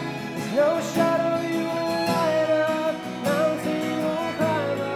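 Music: a man singing a slow worship song, accompanied by acoustic guitar.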